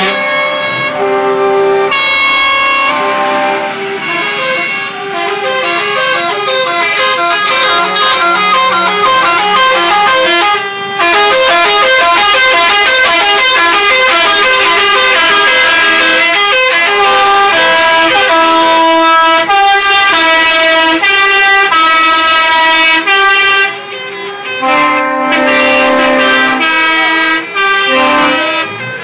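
Trucks' air horns sounding almost without pause, several at once, in pitches that change from note to note. They drop away briefly near the end, then sound again.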